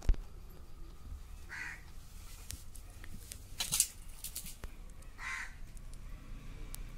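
A crow cawing three times, a couple of seconds apart, the middle call the loudest, over a quiet outdoor background. A sharp knock sounds right at the start.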